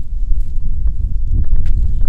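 Wind buffeting the microphone, a loud low rumble throughout, with faint irregular crunching footsteps of boots on gritty sand.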